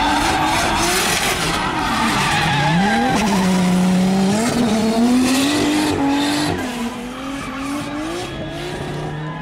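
Two drift cars sliding sideways in tandem, their engines revving up and down with the throttle while the rear tyres squeal and hiss. It gets a little fainter in the last few seconds.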